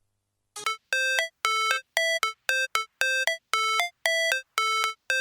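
Electronic music: a run of short, evenly spaced synth notes, about two a second, starting about half a second in, each note a bright tone that steps between a few pitches.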